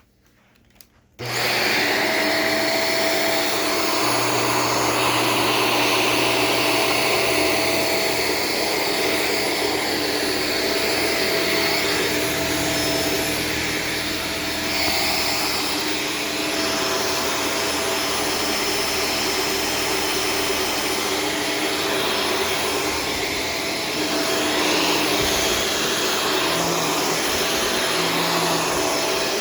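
Corded Shark Stratos vacuum cleaner switching on about a second in, then running steadily with a constant motor whine.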